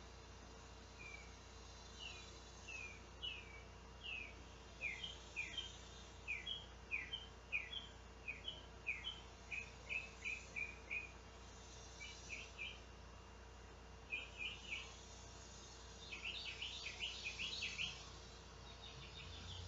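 A songbird singing a series of short, slurred whistled notes, sparse at first and then coming in quicker runs, loudest near the end, over a faint steady hum.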